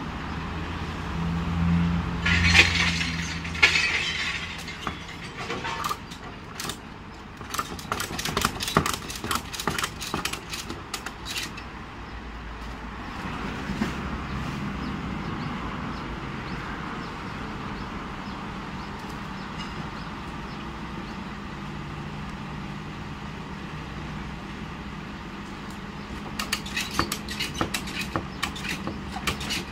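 Cargo ratchet strap being tightened: two spells of quick, sharp metallic clicks from the ratchet buckle, the second near the end, over the steady hum of a vehicle engine.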